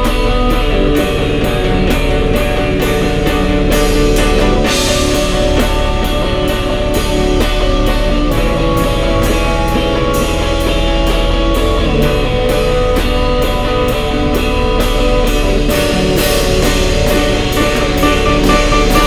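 Rock music: an electric guitar playing over a drum kit, with cymbals keeping a steady beat.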